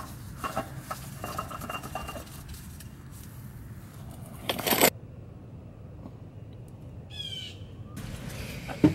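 Scattered light metallic clinks and scrapes of hand tools at work under a car, with one louder rustling burst about halfway through. A short series of bird chirps comes near the end.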